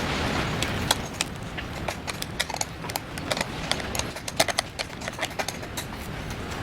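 Irregular sharp clicks and metallic clinks of hand tools working the handlebar fittings of a motorcycle, several a second, thickest in the middle of the stretch.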